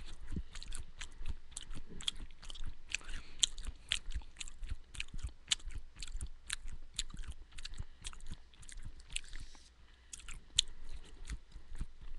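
A person chewing a mouthful of homemade granola of oats, almonds and raw sunflower seeds: a fast run of small crunches, several a second, picked up close to the mouth by a headset microphone.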